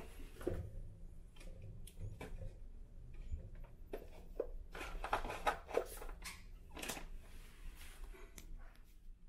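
Scattered rustling and light clicks, busiest in the middle, over a steady low hum.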